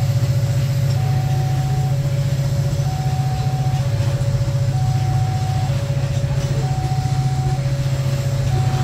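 Long coal train's wagons rolling past with a steady, loud low rumble. Over it, the level crossing's warning alarm alternates between two tones, each held about a second.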